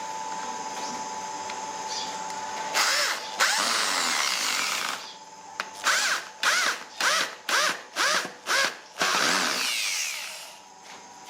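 Handheld electric drill in woodworking, run for about two seconds under load, then pulsed in about seven short bursts that spin up and down, and run once more for about a second before fading out.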